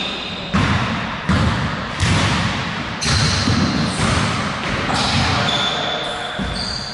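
A basketball bouncing on a hardwood gym floor, roughly once a second, each bounce echoing in the large hall.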